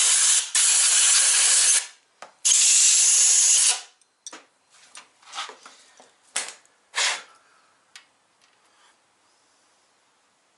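Compressed-air tool hissing in two bursts, the first about two seconds and the second about a second and a half long, followed by a few short clicks and rattles of metal parts being handled.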